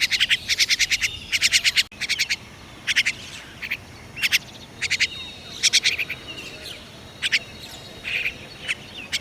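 Small songbirds chirping in quick bursts of rapid repeated high notes, each burst about half a second long and coming every second or so, with a few thinner whistled calls between them.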